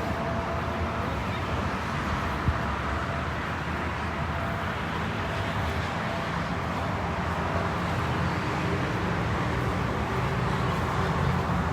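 Steady outdoor rumble of road traffic, with a low engine hum growing slightly louder toward the end.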